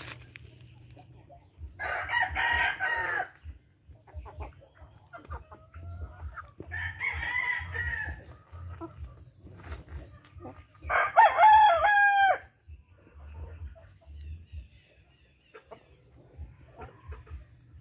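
Heritage chicken rooster crowing three times, about four and a half seconds apart, the third the loudest with a falling end, among a flock of chickens feeding.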